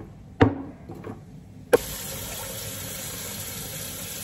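A sharp knock, then a second knock as a kitchen tap is turned on, and water runs steadily into a sink for rinsing freshly gathered shellfish.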